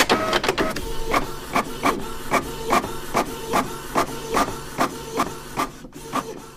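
Electronic sticker cutting machine running, its motors whirring as the blade carriage moves over a sheet of stickers. A regular pulse comes about two and a half times a second and fades near the end.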